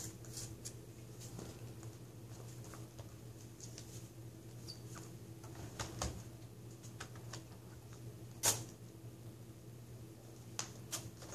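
Faint handling noises of laptop LCD panels being moved and set down: scattered light clicks and taps, with a sharper tap about eight seconds in, over a faint steady low hum.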